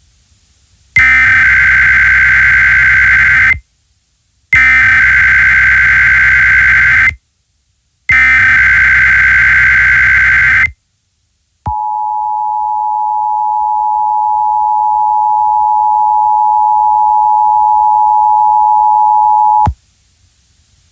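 Emergency Alert System SAME header: three identical bursts of buzzy digital data tones, each about two and a half seconds long with short pauses between, encoding a tornado warning alert. Then comes the EAS two-tone attention signal, a steady dual tone lasting about eight seconds that grows slightly louder and cuts off suddenly.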